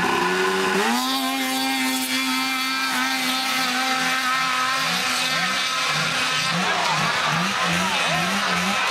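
Snowmobile engine revving up hard about a second in as the sled launches on dirt, then running at high revs while climbing; from about halfway its pitch repeatedly rises and drops, roughly twice a second.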